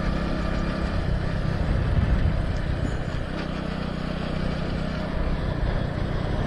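Motorcycle engine running steadily while riding along at road speed, with wind noise over the microphone.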